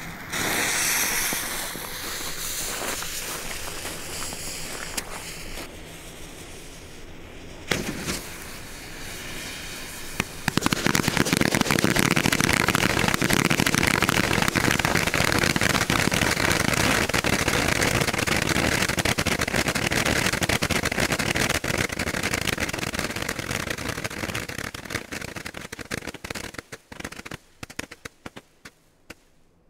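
A lit fuse hissing and sputtering, then a bundle of ten Lesli Böser Chef 100-shot roman candles firing, starting about ten seconds in. It fires as a dense, rapid stream of shots for over ten seconds, then thins to scattered single shots near the end as the tubes burn out.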